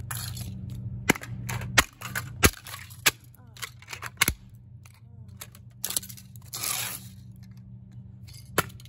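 Small plastic model trucks and train cars cracking and snapping under platform shoes on concrete: a run of sharp cracks, the loudest close together in the first half, then fewer and fainter, over a low steady hum.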